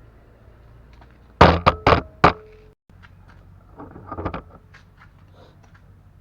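A quick run of four loud knocks, then a softer clatter about a second and a half later.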